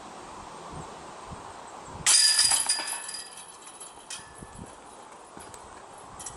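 Disc golf putt hitting the chains of a steel chain basket: a sudden jangle of rattling, ringing chains about two seconds in that fades over a second or so, the sound of the putt being caught for par.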